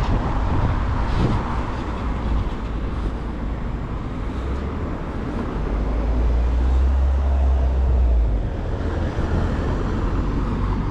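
Town-centre street noise of passing road traffic. A low rumble builds from about four seconds in and cuts off suddenly about eight seconds in.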